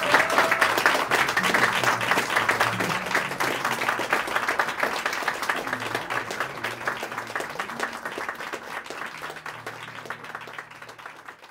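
Audience applauding after the song, a dense patter of many hands clapping that gradually dies away.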